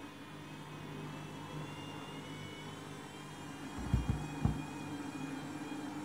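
Candy Grand'O Vita washing machine's drum motor whirring steadily as the drum turns with a wet load, a faint high whine creeping slowly up in pitch. A few low thuds sound about four seconds in.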